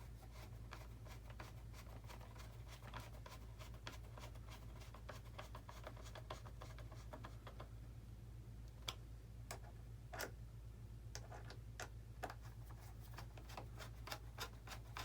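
Faint clicks and scratches of screws being driven by hand into a foam RC model airplane's fuselage, left only lightly tightened, with a few sharper clicks about nine and ten seconds in. A steady low hum runs underneath.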